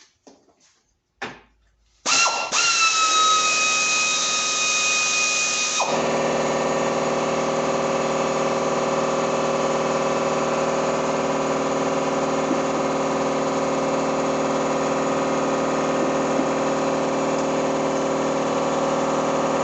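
A power tool, such as a drill or driver, runs continuously and steadily while the radiator bracket is being removed. It starts abruptly, with a higher whine for the first few seconds, settles into a steady, lower-pitched run about six seconds in, and cuts off sharply at the end.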